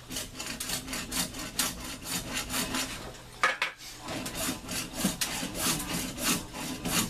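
Hacksaw cutting through a PVC pipe: quick back-and-forth scraping strokes, about three a second, with a short pause about halfway through before the sawing resumes.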